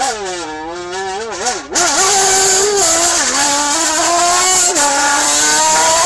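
Motorcycle engine imitated with a drink can: a buzzing tone that revs up and down, then a louder, steadier drone that steps down in pitch a few times, like a motorbike running through its gears.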